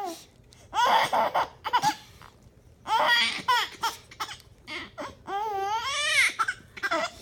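A baby's high-pitched squeals and cries in several short bursts, then one longer wavering squeal near the end.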